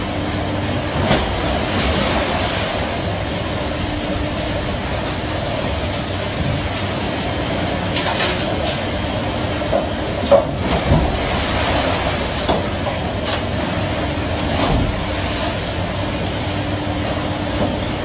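Fishing boat's engine and deck machinery running with a steady drone, with a few sharp metal clanks and knocks as gear is worked on the steel sorting table, the loudest about ten seconds in.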